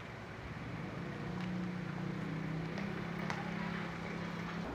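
A steady low mechanical hum over background noise, with a few faint clicks; the hum stops abruptly near the end.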